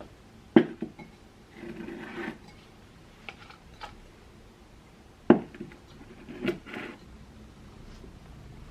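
Objects being handled on a hard surface: two sharp knocks about five seconds apart, each followed by softer scraping and rustling.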